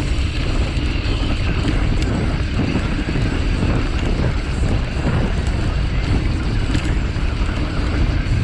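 Wind rushing over the microphone and tyres rumbling on a dirt trail as a mountain bike descends, with occasional clicks and rattles from the bike over bumps.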